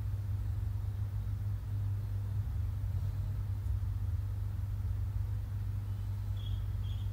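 Steady low background hum, with two faint short high-pitched blips near the end.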